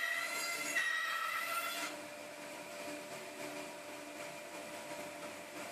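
Bandsaw cutting a strip of wood: a loud, steady whine while the blade is in the cut, stopping about two seconds in, after which the saw runs on more quietly.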